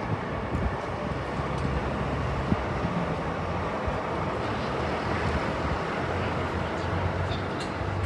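Steady outdoor noise of a distant crowd and street, with a low steady hum that grows stronger in the second half.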